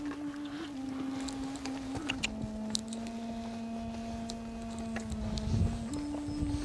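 Film-score drone: one low sustained note that steps down about two seconds in and rises again near the end, with scattered faint clicks and a brief low rumble about five and a half seconds in.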